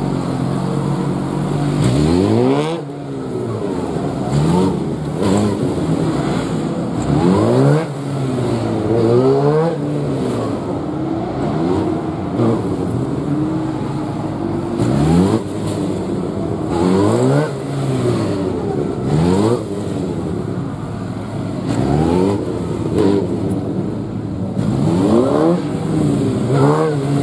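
Suzuki GSX-R1000 inline-four engine revving hard and dropping back again and again, roughly every two seconds, as the motorcycle accelerates out of each tight turn and slows for the next on a gymkhana cone course.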